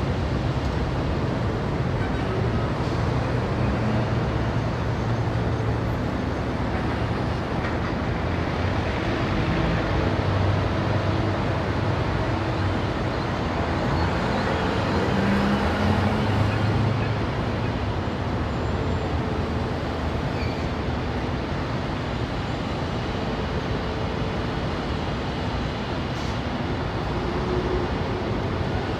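Dense Indian city street traffic: cars, motorbikes and auto-rickshaws running and passing in a steady wash of engine noise. One vehicle passes loudest about halfway through.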